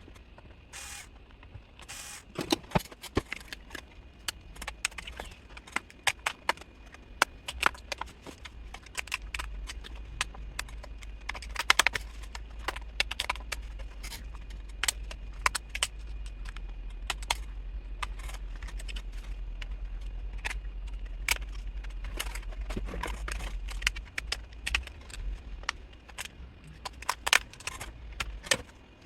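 The plastic bottom cover of an MSI Modern 15 laptop being opened: a long run of sharp clicks, ticks and scrapes as it is unscrewed and pried loose, with a low rumble underneath through the middle part.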